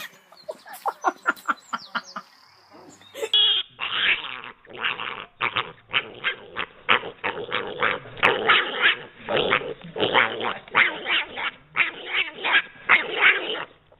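Dog barking over and over in short bursts, about two or three a second. The recording changes abruptly about three seconds in, and the barking carries on.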